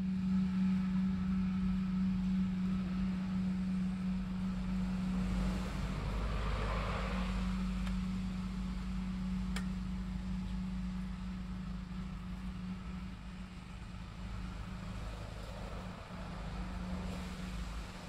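Steady low mechanical hum, like a motor running, with a noisy whoosh that swells and fades about seven seconds in and one sharp click near ten seconds.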